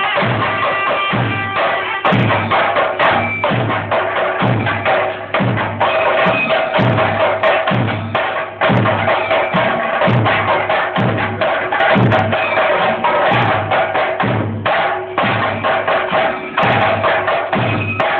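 Chenda drums beaten fast with sticks in a steady, driving rhythm, with a held tone sounding over the drumming, typical of the percussion that accompanies a Muthappan Theyyam ritual.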